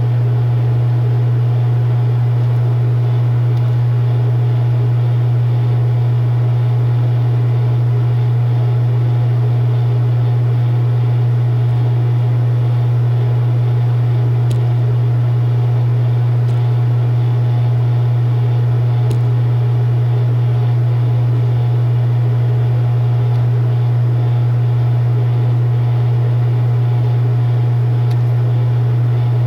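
Loud, steady low hum on a phone line while the call is on hold, with no voices.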